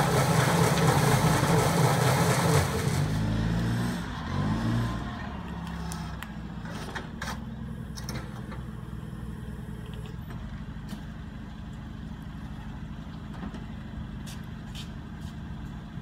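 Christmas-tree baler's electric motor running as its ring spins, wrapping twine around the tree. About three seconds in it switches off and winds down with a falling pitch. A low steady hum and a few light clicks follow.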